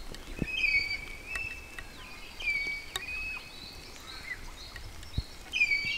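Birds calling in thin, high whistled notes that slide in pitch and overlap, over a faint background hiss. A sharp tick about three seconds in and a soft low thump near five seconds.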